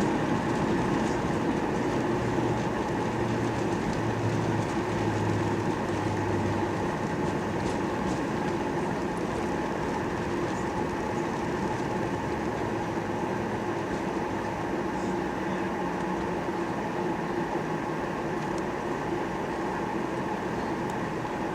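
Cabin noise inside a Ryanair Boeing 737-800 rolling on the ground just after touchdown: a steady drone from its CFM56 engines with airframe and wheel rumble, slowly getting quieter as the jet slows.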